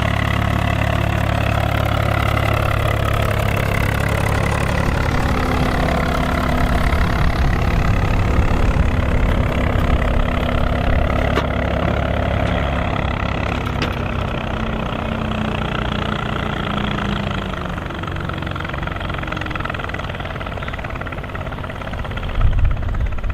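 Volvo BM tractor engine running steadily, its pitch wavering a little, dropping somewhat in level about two-thirds of the way through.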